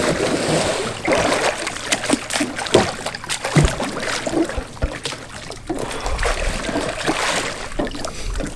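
Water splashing and sloshing as a paddler rolls a capsized sea kayak back up with a wooden Greenland paddle, with many small splashes and drips.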